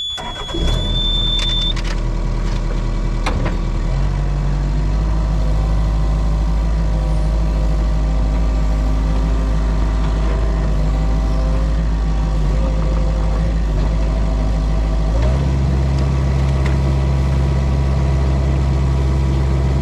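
Mini excavator's diesel engine starting up, with a high beep at key-on, then running steadily; its engine note changes about four seconds in and rises again near fifteen seconds as the throttle is raised.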